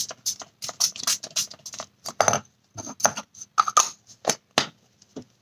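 Makeup setting spray spritzed from a pump mist bottle onto the face again and again: short hissing sprays, several a second at first, then more spaced out.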